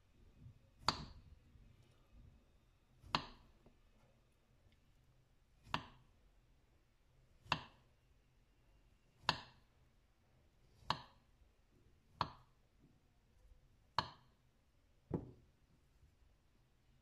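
Kitchen knife slicing a peeled potato on a wooden cutting board, the blade knocking on the board nine times, once every second or two. The last knock is softer.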